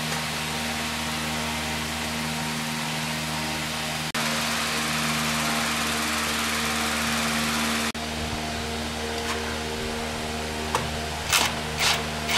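A machine running with a steady, even hum and hiss; the level jumps abruptly twice. Three short, sharp bursts of noise come near the end.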